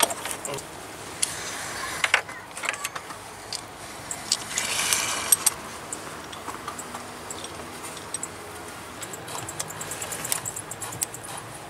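Metal hand tools clicking and knocking against engine parts while the vacuum pump is worked on in a Mercedes Sprinter engine bay, with a denser rasping stretch lasting about a second around the middle.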